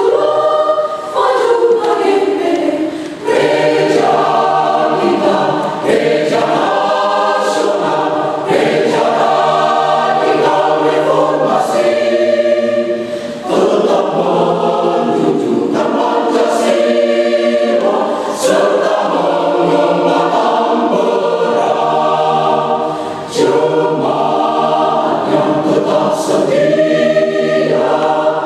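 Church choir singing in sung phrases with brief pauses between them.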